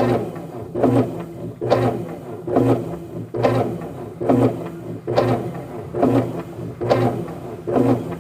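Brastemp top-load washing machine running its wash agitation, a steady motor hum with a clattering knock about once a second. It is the intermittent "quebradeira" (a breaking, clattering noise) during washing, whose cause has not yet been found; the technician suspects the agitator striking the basket.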